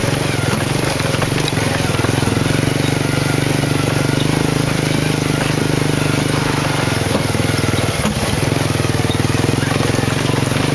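Motorcycle engine of a remork-moto (motorcycle-drawn passenger carriage) running steadily at cruising speed, heard from on board with road and rattle noise.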